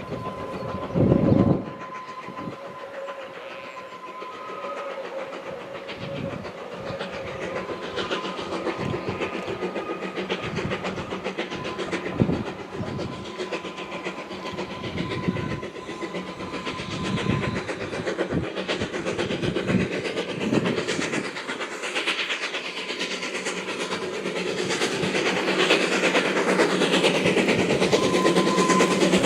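Narrow-gauge Garratt steam locomotive NG.130 working uphill with its train, exhaust and rail clatter growing steadily louder as it approaches, with a brief loud knock about a second in.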